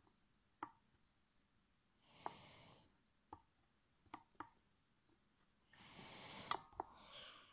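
Faint, scattered light clicks of a soldering iron tip against a stripped screw head on a laptop hard drive's metal case, about seven in all. Two brief soft hisses come in, one about two seconds in and a longer one near the end.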